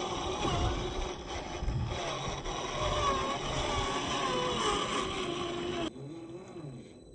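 RC crawler's 550 brushed motor and geared drivetrain whining, the pitch rising and falling with the throttle over tyre noise as it drives off-road. A little before the end the sound drops suddenly to a quieter, lower whine.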